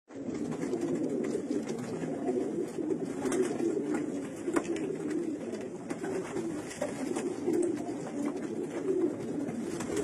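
Domestic pigeons cooing steadily, a low rolling coo, with a few faint clicks.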